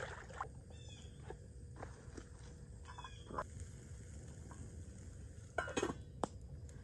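Quiet outdoor background with scattered small clicks, then near the end a short scrape and clink of a utensil against a metal camp pan.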